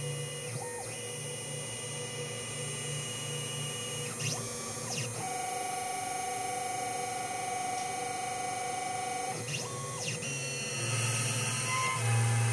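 CNC milling machine turning a small part held in its spindle against a fixed turning insert, the spindle running with a steady high whine. The axis drive motors add a tone that rises and then falls about four seconds in and again about ten seconds in, with a steady feed tone between.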